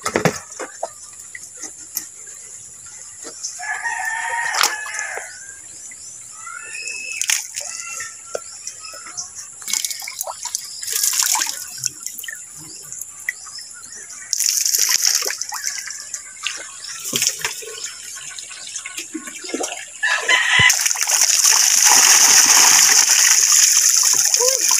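A rooster crowing a few times in the background. Near the end, water poured from a small plastic pail over a person's head comes down in a loud, continuous splash.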